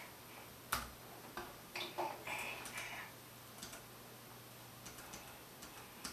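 Plastic bath toys knocking and clicking against each other and the tub: one sharp knock about a second in, a flurry of clatters over the next two seconds, then a few faint ticks.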